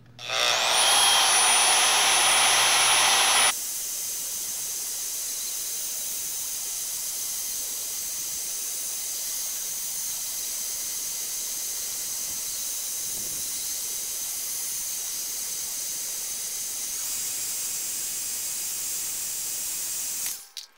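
Milwaukee portable band saw starting up with a rising high whine, then running steadily as its blade cuts through a round steel bar. About three seconds in, the sound drops to a quieter, steady hissing run, which stops suddenly near the end.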